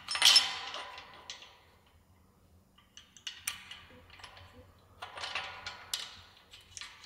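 Steel parts of a hunting-blind tower clanking and knocking together during assembly: a string of sharp metallic knocks with brief ringing, the loudest just after the start, a quiet spell around two seconds in, then more knocks.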